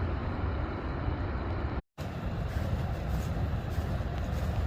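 Steady rush of ocean surf mixed with wind rumbling on the microphone, with a brief dropout about two seconds in.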